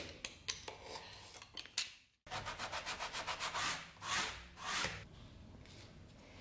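Utility knife scraping and clicking as it cuts a strip of leather along a steel ruler. After a short break comes a fast run of short rubbing strokes on leather, about nine a second, then two longer swishes.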